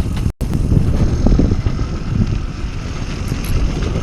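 Steady low rumble of a fishing boat's motor, with wind buffeting the microphone. The sound cuts out for an instant about a third of a second in.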